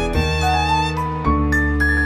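Background music: a melody of held instrumental notes over a steady bass line.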